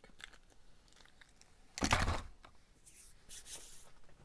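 Handling and movement noise: one short rustling thump about two seconds in, then a softer, hissing rustle.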